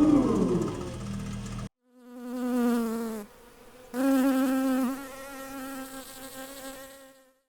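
A housefly buzzing sound effect in two spells, the first about a second long and the second about three seconds, its pitch wavering. Before it, a steady hum cuts off suddenly.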